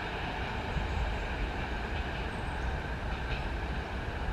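ED4M electric multiple unit train running on the track: a steady hum and rumble that swells about a second in.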